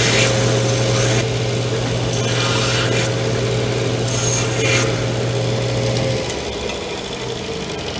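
Disc sander running while small metal tabs are pressed against the abrasive disc to deburr them, in about three short grinding passes. The motor is switched off about six seconds in.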